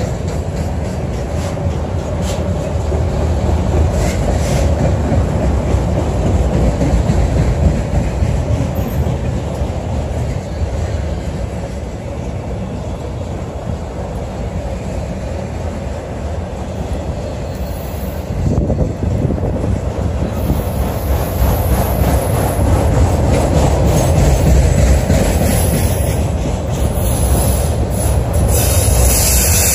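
Freight train of autorack cars rolling past close by: a steady, loud rumble of steel wheels on the rails. A hiss rises over it in the last ten seconds.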